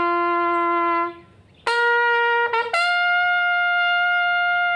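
A military bugle call of long, held notes, sounded as funeral honours. A low note ends about a second in; after a short pause comes a higher note with a quick flourish, then a long note an octave above the first, held until near the end.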